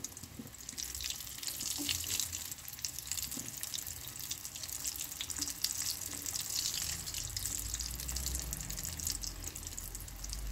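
Sausage cutlets frying in hot oil in a pan: a steady crackling sizzle as they are turned over to fry the second side.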